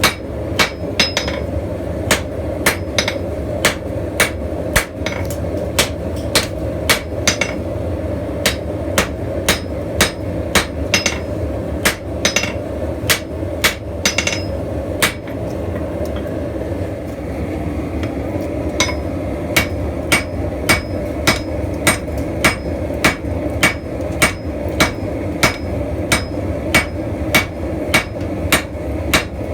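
Blacksmith's hammer striking steel on an anvil at a steady pace of about two blows a second, the blows ringing, over a steady low rushing noise.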